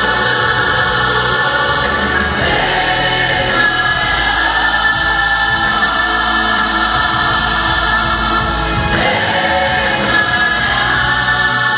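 Gospel vocal group of men and women singing together in harmony, a choir-like blend of voices held steady and loud.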